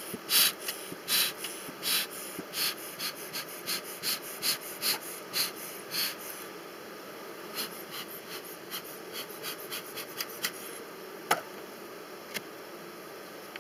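Metal hive tool scraping along the wooden edge of a beehive box in quick repeated strokes, about two a second, fainter and sparser after about six seconds, with one sharp click near the end.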